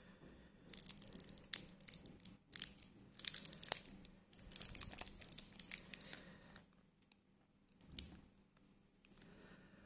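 Faint handling noise from gloved hands turning a wristwatch on a steel bracelet and its paper hang tag: irregular rustling and crinkling with a few light clicks, then one sharper click about eight seconds in.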